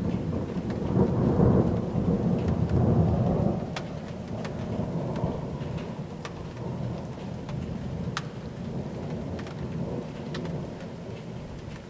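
Rolling thunder from a thunderstorm, loudest over the first few seconds and then slowly dying away. Scattered raindrops tick close by.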